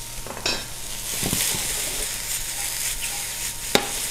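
Filet mignon steaks sizzling steadily as they sear in a hot stainless-steel skillet, with a few light knocks of metal tongs and one sharp clack near the end as the tongs are set down.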